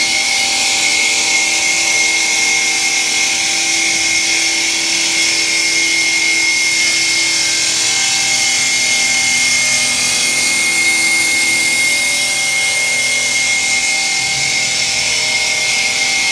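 CNC stone profiling machine running, its water-cooled profiling wheel grinding a moulded edge into a granite slab. A loud, steady hiss with a high whine held throughout.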